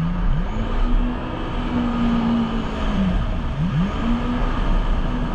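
Jet ski engine running under throttle, its pitch dropping briefly and climbing back twice, near the start and about three and a half seconds in, as the throttle is eased and reopened.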